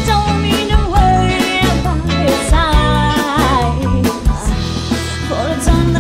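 Live pop band playing, with a female lead vocal singing over drum kit, bass guitar, guitar and keyboard.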